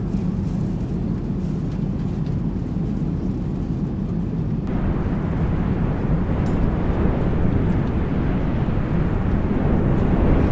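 Steady low rumble of an airliner in flight. About halfway through, a rushing wind noise joins it and the sound grows a little louder and brighter.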